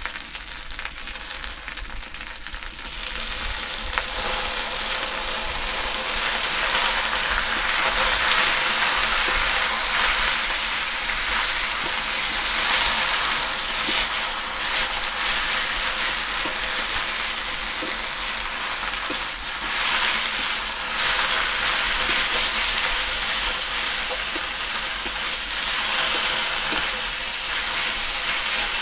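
Saag (leafy greens) sizzling as they fry in a metal kadai, stirred and scraped with a metal spatula. The sizzle grows louder about three seconds in, once the stirring starts.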